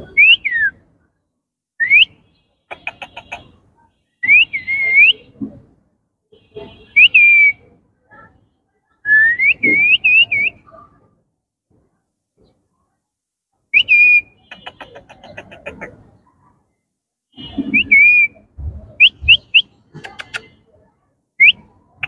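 Indian ringneck parakeets whistling: loud, short whistles that rise or rise and then fall, coming in bursts with brief pauses, mixed with raspier chattering calls.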